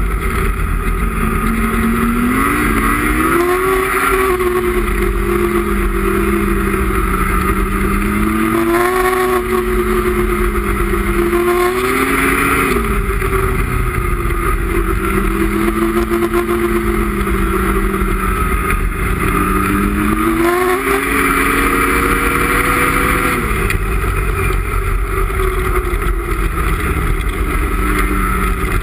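Ski-Doo MXZ X 850 E-TEC snowmobile's two-stroke twin engine running at trail speed. Its pitch climbs and falls several times as the throttle is opened and eased, over a steady rushing noise.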